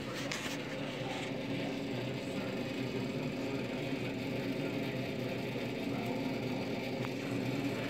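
Electro-Matic Chef commercial rotisserie running with a steady mechanical hum, its motor and drive going at a constant pace. A short click sounds about seven seconds in.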